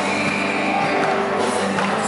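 Gospel song playing, music with singing.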